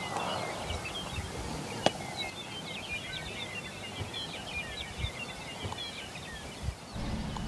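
Many small birds chirping and singing over a faint outdoor hiss, with a few sharp clicks. Near the end a low steady hum takes over.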